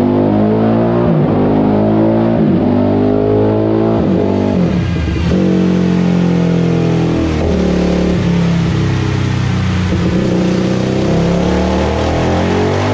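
Honda CRF450 single-cylinder four-stroke engine in a TRX450 quad, run hard on a chassis dyno. The revs rise and fall back several times as it pulls up through the gears, then climb steadily again near the end as a full-throttle pull begins.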